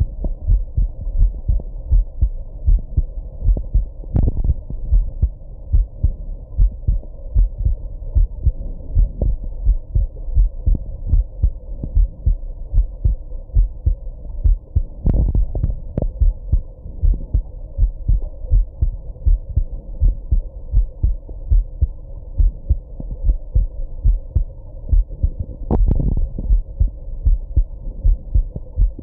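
A human heartbeat heard through the chest, beating steadily and evenly, deep and muffled. Three louder jolts, about ten seconds apart, are hiccups.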